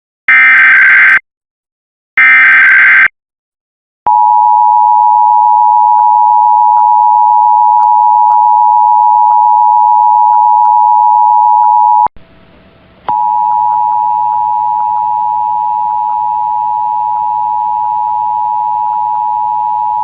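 Emergency Alert System broadcast audio: the last two SAME header data bursts, short harsh digital screeches, are followed by the two-tone EAS attention signal held steady for about eight seconds. It cuts off about twelve seconds in. After a brief break, a second, quieter attention signal begins over a low hum.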